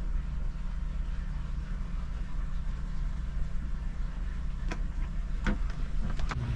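Steady low mechanical hum or rumble, with a few sharp clicks or knocks near the end.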